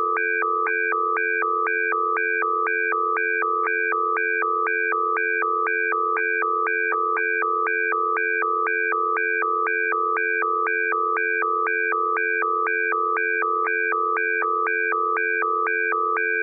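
Canadian Alert Ready emergency attention signal: a steady low chord under higher tones that alternate about twice a second, repeating without change. It heralds a critical alert, here a tornado warning.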